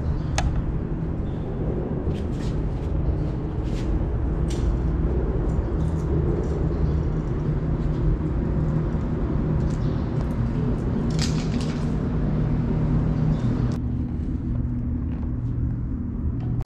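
Steady low rumble of road traffic on the bridge overhead, with a few faint clicks.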